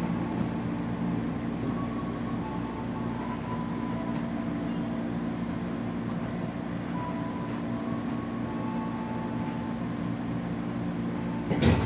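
Interior sound of a 205-series electric commuter train motor car slowing almost to a stop: a steady hum of several low tones, with fainter higher tones that come and go. A sudden short loud noise comes near the end.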